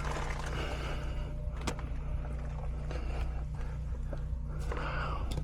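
A steady low electrical hum, with a few light clicks and rustles of handling.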